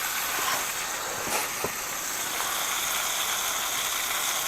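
Burbot pieces frying in a pan: a steady sizzle, with a couple of small knocks about a second and a half in.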